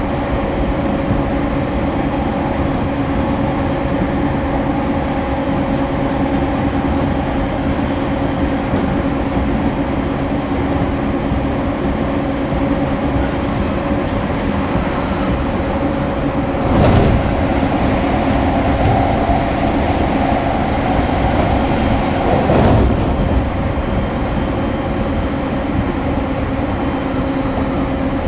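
Running sound of an E231 series electric commuter train heard from inside the car: a steady rumble of wheels on rail with a constant hum. Twice, a little past the middle, the noise briefly surges louder.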